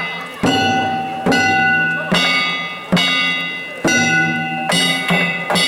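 Danjiri festival music: metal gongs and a drum struck together in a steady beat, a little more than one stroke a second, each stroke ringing on and fading before the next.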